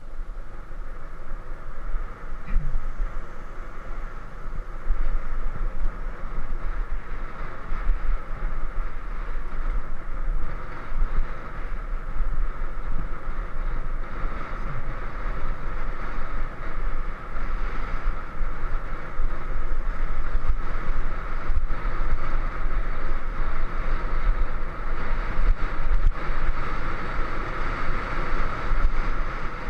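Steady wind rush and buffeting on the microphone of a camera riding along a road, over a low rumble of road noise.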